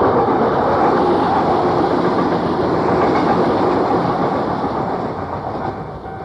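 Keio Inokashira Line electric commuter train passing over the level crossing: loud steady noise of wheels running on the rails, easing off near the end. The recording is an old cassette tape with dull sound quality.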